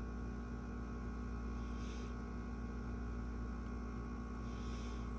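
Steady electrical hum, with faint soft rubbing about two seconds in and again near the end.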